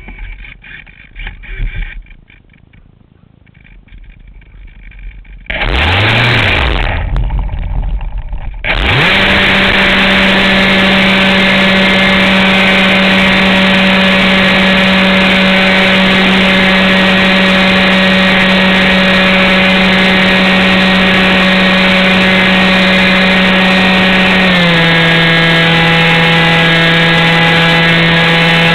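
Radio-controlled model airplane's motor and propeller, heard from a camera on board close to the prop. A short burst of throttle about six seconds in; then the motor spins up quickly at about nine seconds and runs at a steady high whine under full power for takeoff and climb, dropping slightly in pitch near the end as the throttle eases.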